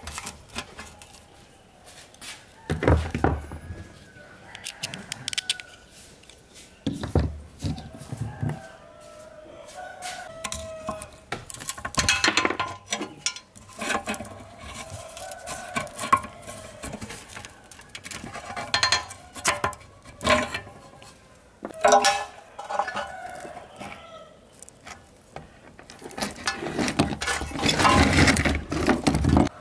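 Metal clinks, clicks and clatter of hand tools and small parts as the rusty switch box of an old electric fan is taken apart with a screwdriver and pliers, in irregular bursts with a longer run of clatter near the end. Short bird-like calls sound between the knocks.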